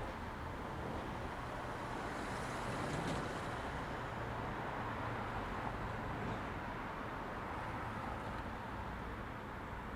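Steady vehicle noise with a low rumble, swelling slightly about three seconds in.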